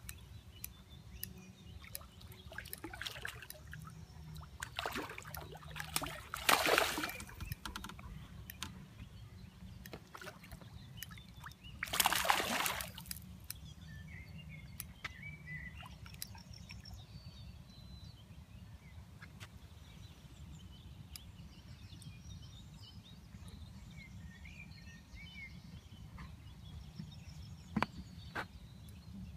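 A hooked tench thrashing at the water surface during the fight, making several short splashes, the loudest near the middle. Faint bird chirps can be heard in between.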